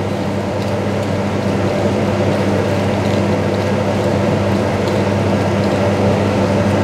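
Steady drone of a commercial kitchen extractor fan, with a constant low hum.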